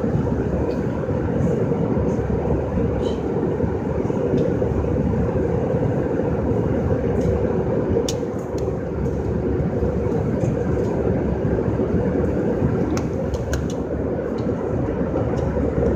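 Steady low drone of an airliner cabin in flight, engine and airflow noise, with a few faint clicks in the second half.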